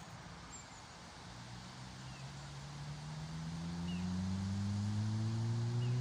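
A distant engine droning, coming in about a second in and growing steadily louder while its pitch slowly rises, as it draws nearer. A few faint bird chirps over it.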